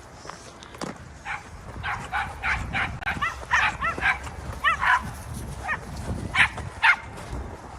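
Small dogs barking and yipping in a quick, excited run of short high barks, some bending in pitch, starting about a second in.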